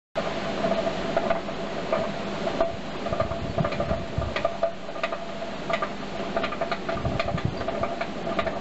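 Coal forge fire under a strong air blast, crackling and spitting sparks, with a steady hum underneath; it starts suddenly just after the beginning.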